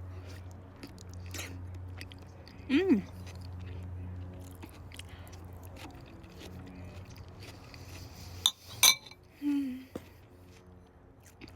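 A person chewing a mouthful of food, with a short pitched 'mm' about three seconds in and another near the end, and a sharp click of a utensil shortly before the second.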